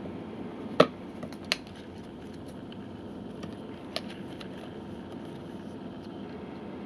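Handling noise from rubber dive fins and their plastic packaging: a few sharp clicks and rustles, the loudest about a second in, over a steady low hum.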